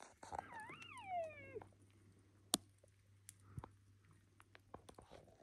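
A cow-elk mew: one whiny call of about a second and a half that rises and then slides down in pitch. A sharp click comes about halfway through, with a few fainter ticks after it.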